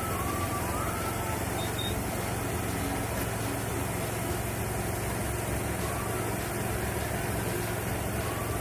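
An engine running steadily at an even speed, a constant low hum with no revving.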